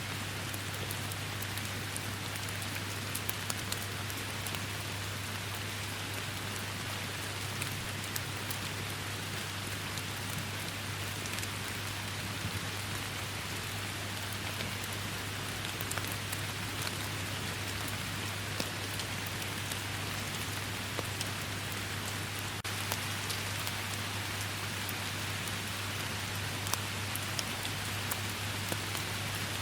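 Steady heavy rain: a constant hiss of rainfall with scattered sharp ticks of individual drops, over a steady low hum.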